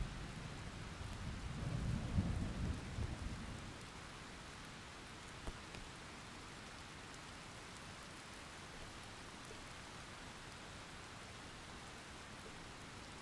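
Thunderstorm: steady rain with a low rumble of thunder that swells about two seconds in and dies away by about four seconds in, leaving the rain.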